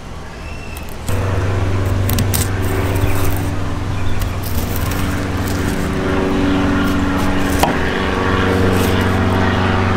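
A motor starts up abruptly about a second in and runs steadily with a low hum, with light clicks of knife and handling over it.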